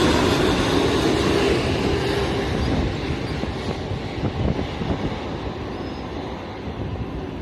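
Jet airliner's engine roar fading as the aircraft moves away, the high hiss dying off first and the low rumble lingering.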